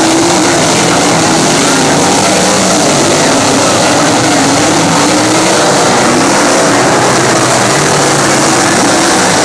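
A pack of winged sprint cars racing together, several engines running loud at once, their pitch rising and falling as they go through the turn.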